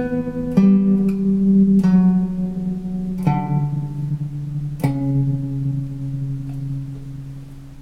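Guitar playing about five slow picked notes through a Montreal Assembly Rand() pedal, a random tremolo whose uneven volume wobble gives a glitchy, haunted sound. The last note rings out and fades near the end.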